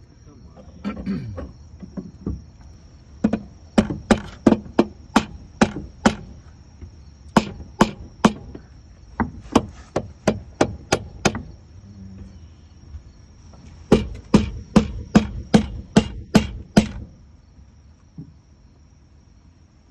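Hammer blows on a spatula wedged into the 5200 adhesive bed of a B60 transducer, trying to break the bond with the hull. The blows come in three quick runs of about two to three a second, with short pauses between. A steady insect chirring runs underneath.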